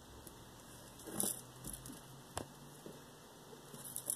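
Faint handling noise from a phone being picked up or touched: a few soft rustles and scattered clicks, with one sharper click about two and a half seconds in.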